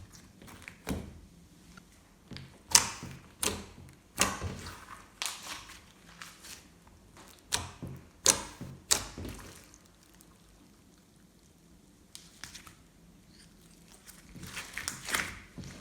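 Glossy slime being pressed and pulled by hand, giving irregular sticky clicks and small air-bubble pops. The pops come in clusters, with a quieter pause about two thirds of the way through.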